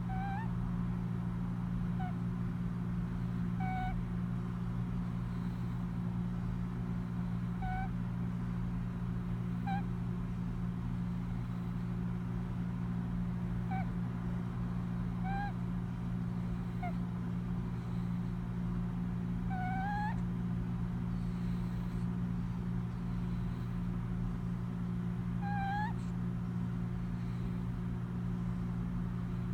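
A sleeping cat snoring in short, high-pitched squeaks like a little squeak toy, one every few seconds, some rising at the end, over a steady low hum.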